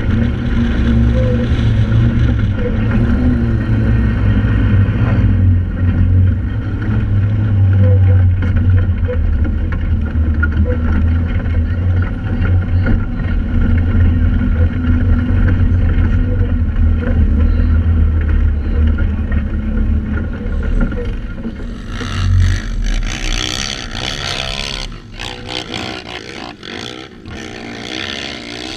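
Joyner 1100 Sandviper sand rail's engine running steadily under load while driving through soft sand, heard from on board. About 22 seconds in the engine note falls away, leaving a quieter, uneven rushing and clatter.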